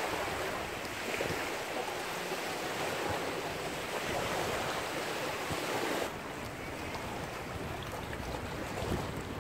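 Steady wind and small waves washing, with wind buffeting the microphone; the hiss turns duller and slightly quieter about six seconds in.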